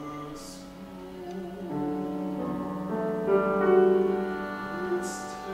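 Live chamber music from clarinet, violin and piano: held notes that swell to a peak a little past the middle, then ease off.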